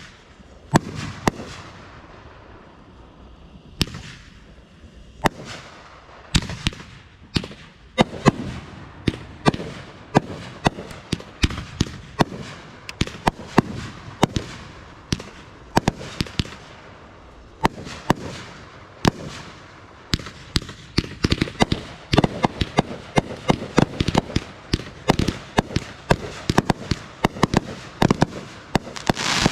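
Consumer firework cakes firing a long string of sharp bangs, several a second, growing denser in the second half and ending in a loud crackling barrage.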